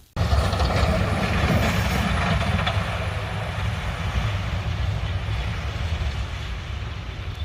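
Heavy truck engine rumbling by with a steady rushing noise over it, starting abruptly.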